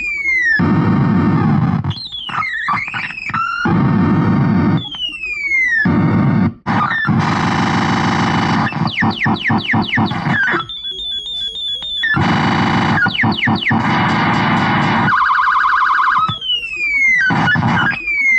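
Retro "Space War" sound-effect chip running through its classic effects: falling whistles, rapid strings of downward zaps like a ray gun, rasping noise bursts and a warbling alarm-like tone, one after another. The sound is electronic and distorted, with abrupt switches between effects.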